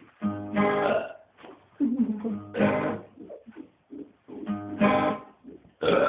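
A man belching deliberately three times, each burp a low pitched sound lasting about half a second to a second, with short pauses between them.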